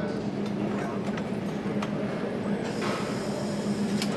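Factory assembly-hall ambience: a steady machine hum with scattered light metallic clicks, and a hiss that starts about two and a half seconds in and lasts over a second.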